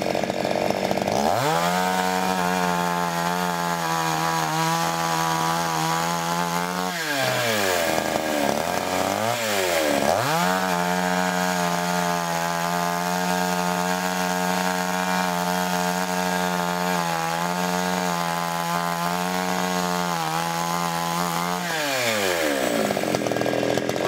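Gasoline chainsaw cutting through a pine log under load, its engine note held steady as the chain works through the wood. In the middle the note sags sharply twice as the saw bogs in the cut, then picks back up. The loaded note gives way a couple of seconds before the end as the cut finishes.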